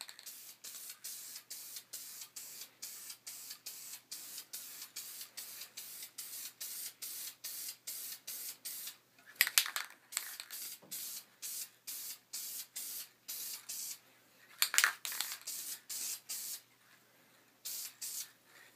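Krylon quick-dry spray paint hissing from an aerosol can in short, quick bursts, about four a second, with louder stretches about halfway and again near three-quarters.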